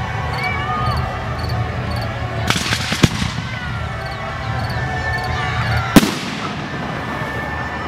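Fireworks display: aerial shells bursting with sharp bangs, two close together about two and a half to three seconds in with a fading tail after the first, and the loudest about six seconds in.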